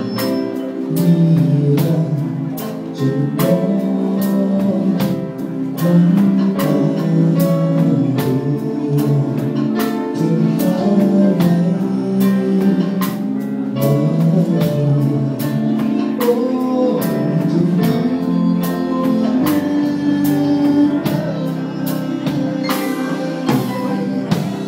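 Live band music: electric guitar over drums keeping a steady beat.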